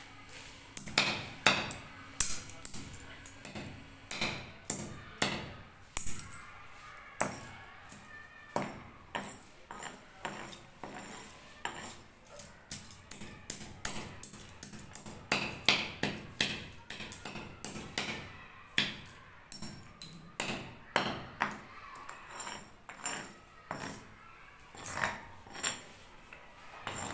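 Hammer blows crushing a computer mouse: dozens of sharp, irregular cracks and knocks, some in quick runs, the loudest about a second in and again around the middle.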